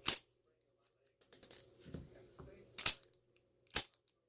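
Sharp metallic clicks and clinks from handling an Ace Hardware A527 padlock and its key: three loud ones, at the start, just before three seconds in and near the end, with quieter rattling in between.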